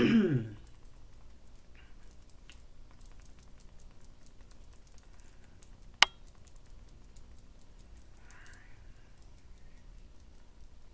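Quiet room with faint, irregular light ticking and one sharp click about six seconds in.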